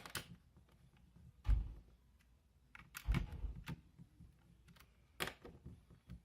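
Hands working on a wall-mounted thermostat's plastic base plate and its wires: several irregular small clicks and taps. Two duller knocks come about a second and a half and three seconds in.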